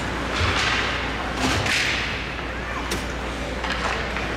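Ice hockey play on an indoor rink: skates scraping and spraying the ice and a few sharp knocks of sticks and puck, the sharpest about three seconds in, over a low crowd murmur.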